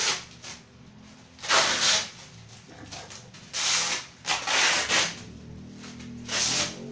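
Plastic wrapping rustling and crinkling as it is pulled off a large flat picture frame, in four loud bursts.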